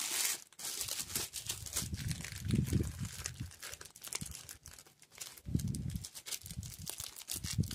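Thin plastic bag crinkling as it is twisted and knotted shut around a portion of tomato paste, with a couple of dull low bumps from the handling.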